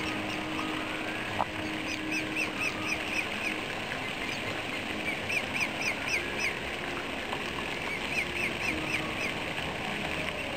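Swan cygnets peeping: three runs of quick, high, thin peeps, five to eight to a run. A single short knock about a second and a half in.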